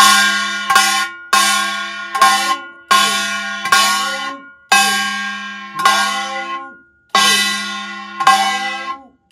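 Kkwaenggwari (small Korean brass gong) struck with its mallet, about ten strokes less than a second apart, each ringing out and fading before the next. The fingers of the hand holding the gong press on it to pull the tone of the strokes, the damping technique of the hwimori practice pattern.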